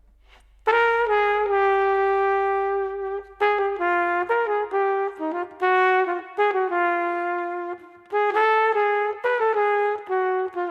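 Solo saxophone playing a slow melody of long held notes, coming in after a short pause at the start, with brief breaks between phrases.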